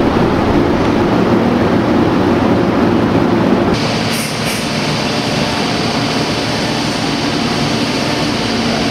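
Thermwood 5-axis CNC router spindle running and cutting into a block of glued-up wood, a loud steady rushing machine noise. About four seconds in the sound changes and a steady high whine comes in.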